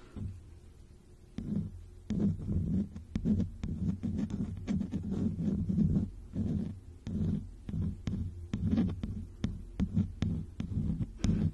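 Soft makeup brush stroked over a phone's microphone in close-up ASMR brushing, making low, muffled swishing rumbles about twice a second with light clicks among them. It starts about a second and a half in.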